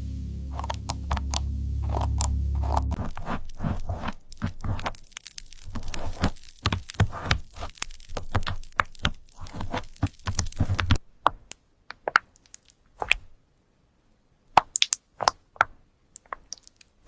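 Keys being typed on, making a run of crunchy clicks and cracks. The clicks come over a low hum for the first few seconds, come thick and fast through the middle, and thin out to scattered single clicks with short silences near the end.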